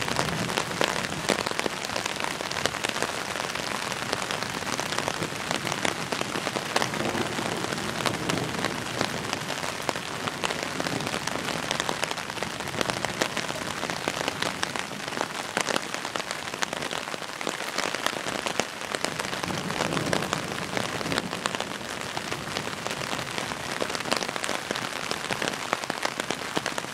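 Steady rain, with many close drops pattering on the umbrella overhead.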